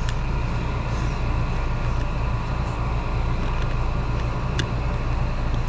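Central air conditioner's outdoor condensing unit running steadily: compressor hum and condenser fan, with the system cooling again after its breaker was switched back on. A few faint clicks of handling.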